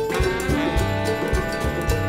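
Live jazz band with a horn section of trumpet, saxophone and baritone saxophone playing held chords over a drum beat.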